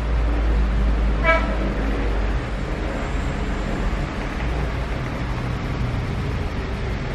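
Steady background rumble and hiss of road and open-air noise around a railway crossing booth, heavy in the low end, with one short high toot about a second in.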